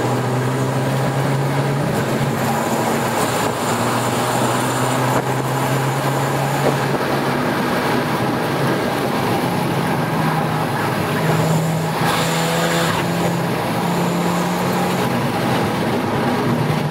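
A 2007 VW GTI's turbocharged 2.0-litre four-cylinder engine, heard from inside the cabin while driving. The engine note holds steady and steps to a new pitch a few times, over a constant rush of tyre and road noise.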